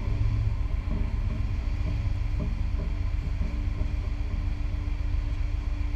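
Steady low rumble with a constant hum on top, the machinery and wind noise of a ship at sea; no sharp blast is heard.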